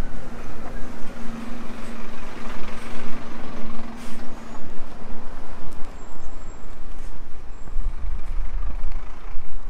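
A heavy road vehicle's engine running close by in street traffic. A steady engine tone holds for the first half and fades out, and a deeper rumble swells near the end.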